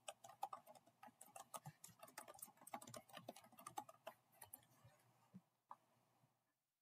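Faint typing on a computer keyboard: a quick run of keystrokes for about four seconds, then a few single clicks.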